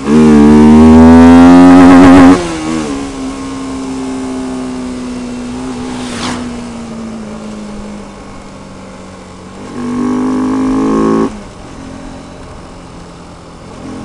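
Bajaj Pulsar RS200's single-cylinder engine, with a K&N conical air filter in place of the stock filter, accelerating hard under full throttle for about two seconds. It then runs quieter at part throttle with its pitch slowly falling, before a second hard burst of throttle around ten seconds in that cuts off sharply. The rider calls the sound so sporty.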